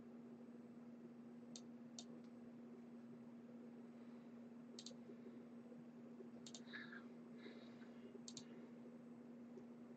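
Near silence with a steady low hum, broken by about five short computer mouse clicks spread through.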